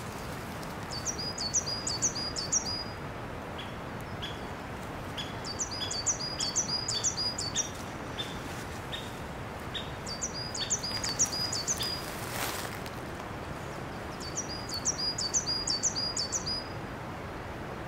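Songbirds calling: one bird sings four short, fast phrases of five or six high notes, spaced a few seconds apart, while another gives single lower notes about twice a second during the first half. A steady outdoor background hiss runs underneath, with a brief rustle-like burst about two-thirds of the way through.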